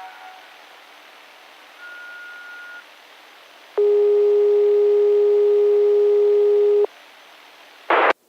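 Hiss of a municipal disaster-prevention radio broadcast just after its chime tune has faded. A short faint high beep comes about two seconds in, then a louder, lower steady tone is held for about three seconds. A brief burst of static follows as the transmission cuts off.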